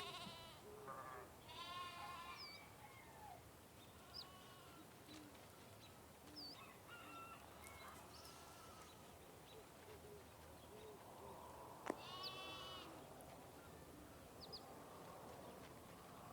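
Livestock bleating, several drawn-out calls with the strongest about twelve seconds in, with short high chirps of small birds in between.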